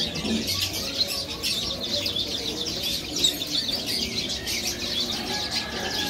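Many small cage birds chirping at once, waxbills among them: a dense, steady twittering of short high chirps.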